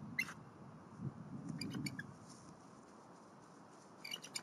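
Bald eagle giving faint, high-pitched chittering calls in short bursts of quick notes: just after the start, about a second and a half in, and again near the end. Soft rustling of nest material runs under the calls.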